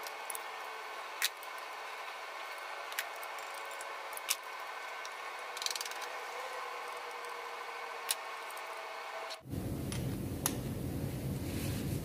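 Scattered sharp metallic clicks and taps of hand tools and fittings being worked on a MAN truck diesel engine's fuel injector pipes, over a steady hum. About three-quarters of the way in, the background abruptly turns to a louder low rumble, with a few more clicks.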